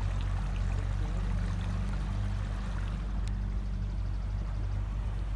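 A boat motor running steadily at cruising speed, with water rushing along the hull.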